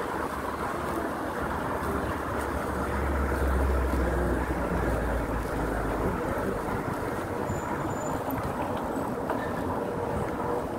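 Wind noise on the microphone of a moving mountain bike, with the steady hiss of its tyres rolling on asphalt; a deeper wind rumble swells about three seconds in and eases off a few seconds later.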